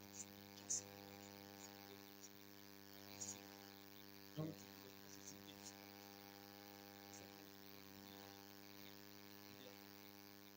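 Near silence: a faint, steady electrical mains hum with a buzz of many overtones, broken by a few faint short blips, the clearest about four seconds in.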